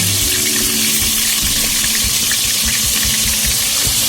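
Wet ground onion paste sizzling loudly in hot oil in a cooking pot: a steady, dense hiss.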